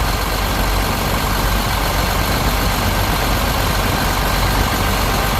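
Caterpillar 950H wheel loader's C7 diesel engine, newly overhauled, running steadily at idle with its cooling fan turning.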